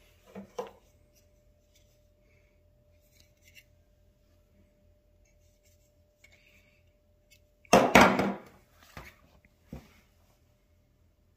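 Handling noise of a plastic handheld code reader and its paper manual on a tabletop: a few light clicks near the start, then a loud clatter and rub about eight seconds in, followed by two softer knocks. A faint steady hum sounds underneath until the clatter.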